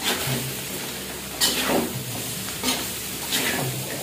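A metal spatula scrapes and stirs in an aluminium wok while flattened jengkol slices sizzle in hot oil, with about four louder scraping strokes over the steady sizzle.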